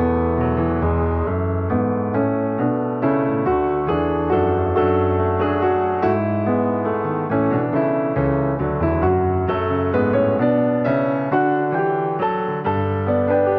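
Piano music: a flowing run of notes struck a few times a second over held bass notes.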